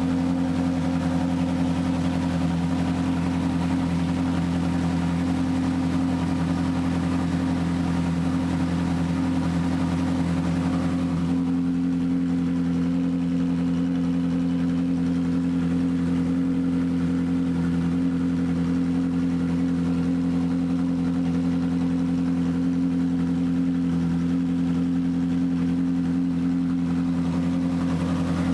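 Ferrari 458 Challenge's 4.5-litre V8 idling steadily through its racing exhaust, a low, even drone with no revs. About eleven seconds in the brighter upper part of the sound fades, while the engine note holds steady.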